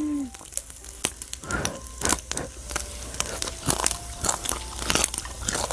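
Pork skin grilling on a round grill pan, popping and crackling in irregular sharp snaps.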